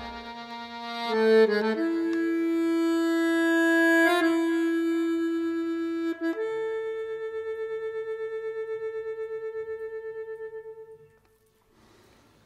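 Background music: a jazz track fades out, then a free-reed instrument with an accordion- or harmonica-like sound holds a few long notes. The last note wavers steadily and dies away about eleven seconds in.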